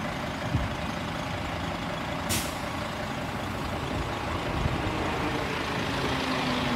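Diesel railcar idling with a steady engine rumble, and a short hiss of compressed air a little over two seconds in. A low engine tone grows stronger near the end.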